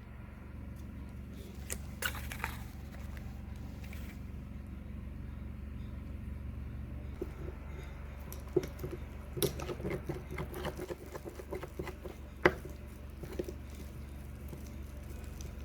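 Small handling sounds of containers and utensils while an ingredient is measured out: scattered light clicks and taps, a busier stretch of small knocks and rustles between about nine and eleven seconds, and one sharp tap about twelve seconds in, all over a steady low hum.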